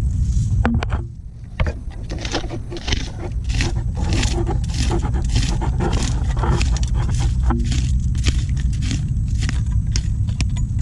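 A sadat, a hooked metal digging blade, scraping and digging through wet mangrove mud and roots in repeated irregular strokes, a few a second, over a steady low rumble.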